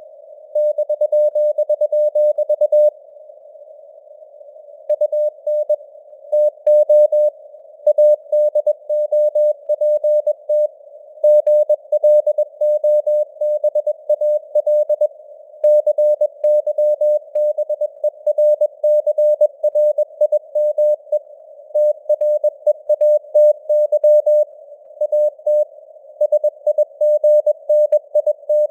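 Morse code (CW) sent as a single mid-pitched tone keyed on and off in dots and dashes at 21 words per minute, inside a narrow band of simulated radio noise. About three seconds in, the keying pauses for about two seconds before sending resumes.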